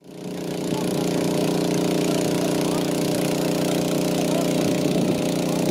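JCB backhoe loader's diesel engine running steadily; the sound fades in at the start.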